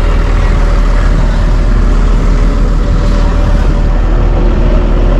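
Diesel engine of a Volvo EW145B wheeled excavator running steadily at close range, a loud low rumble; a steady higher hum joins about four seconds in.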